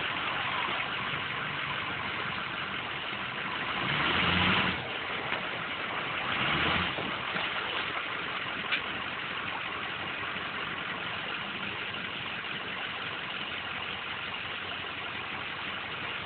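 A vehicle engine idling steadily, with a louder swell about four seconds in and another about seven seconds in, and a single sharp click near the middle.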